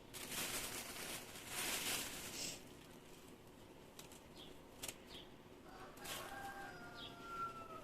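Rustling and handling noises, like plastic packaging or bags being moved, strongest in the first two and a half seconds, then a sharp click and a short falling squeak near the end. Faint bird chirps sound now and then in the background.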